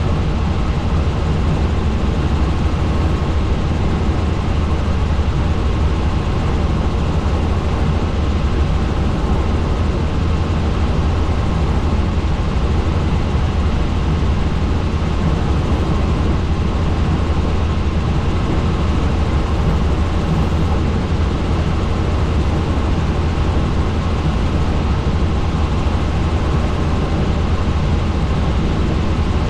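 Helicopter in flight: the rotor and turbine engine make a steady, loud, deep drone that does not change.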